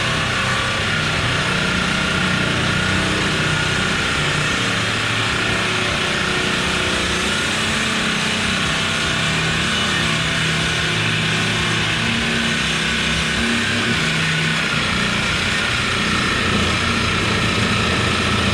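A power tool runs steadily while cutting through the square steel tubing of a race car's rear bumper.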